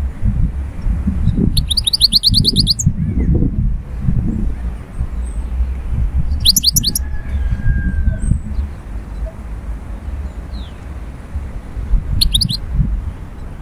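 Caged European goldfinch twittering in three short bursts of fast repeated high notes: the longest about a second and a half in, another midway, and a brief one near the end. A continuous low rumble runs underneath and is the loudest sound.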